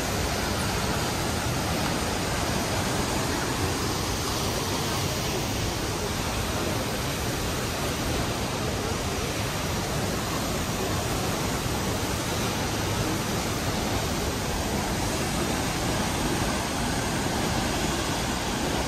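Waterfall plunging into a pool: a steady, unbroken rush of falling water.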